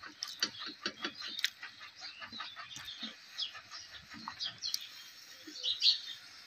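Pitha batter frying on an iron flower mould held in hot oil in an iron wok: steady sizzling with many quick crackles and pops.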